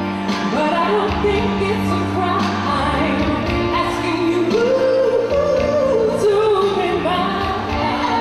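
Live soul music performance: a woman singing lead into a microphone over the music backing.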